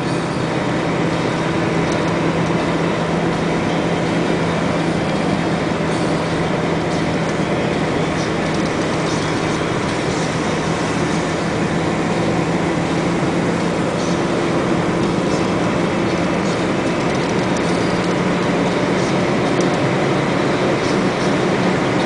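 Engine and road noise of a vehicle driving at a steady speed, heard from inside the cab: a steady drone with an even engine hum under it and a few faint rattles.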